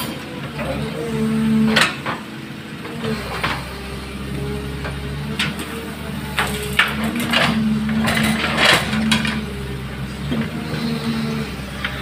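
Caterpillar hydraulic excavator working: the diesel engine runs under load with a droning hydraulic whine that shifts in pitch and comes and goes, and several knocks and clanks as the bucket dumps soil into a dump truck bed.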